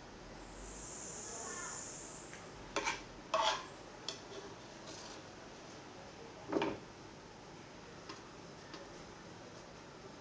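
A serving spoon clinking and scraping against dishes while curry sauce is spooned out: two sharp clinks about three seconds in and another past the halfway point, with a few faint ticks later. A soft high hiss comes in the first two seconds.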